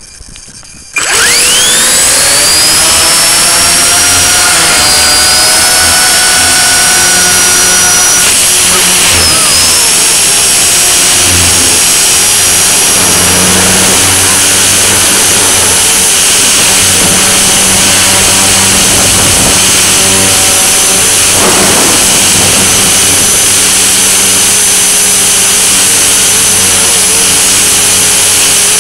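Blade mCP X BL micro RC helicopter's brushless motor and rotor starting about a second in, the whine rising quickly as the rotor spools up. It then runs at a loud, steady high whine whose pitch wavers briefly twice as it flies. Heard close up through the camera mounted on the helicopter.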